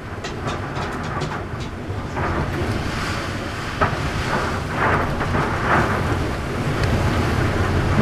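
Typhoon wind gusting, a steady rumble on the microphone that swells in strong gusts, with scattered sharp clicks and knocks, one louder knock about halfway through.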